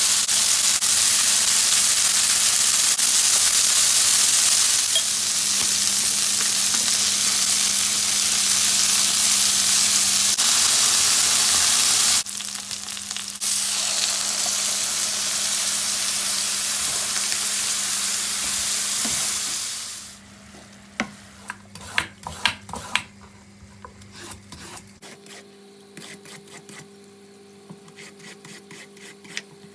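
Food frying in hot oil in a pan, a loud steady sizzle with a brief dip about twelve seconds in, cutting off about twenty seconds in. A few light clicks and knocks of kitchen utensils follow, then a faint steady hum.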